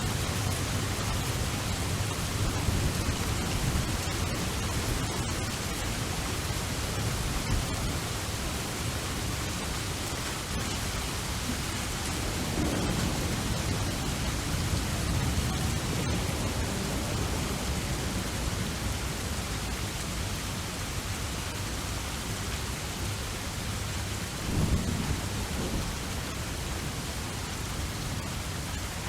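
Steady rain with a low rolling rumble of thunder underneath, swelling briefly louder near the end.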